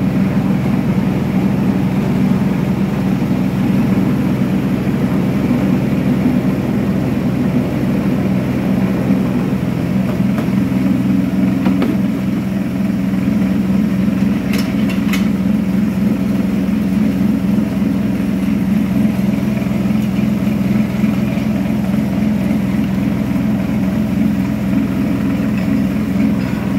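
Belt-driven maize dehulling machine running with a loud, steady drone and hum while it strips the husks from maize kernels. Two sharp ticks sound about halfway through.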